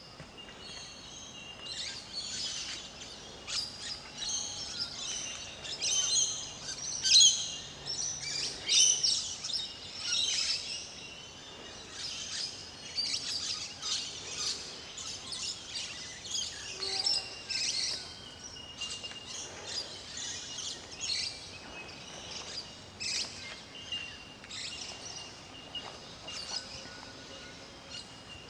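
Small birds chirping and calling, many short, high, overlapping calls, with a thin steady high note underneath at times.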